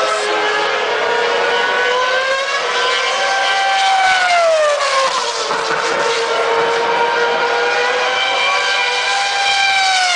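2008 Formula One car's 2.4-litre V8 engine at high revs. The pitch drops about four seconds in as the car slows, then climbs again as it accelerates, and starts falling once more near the end.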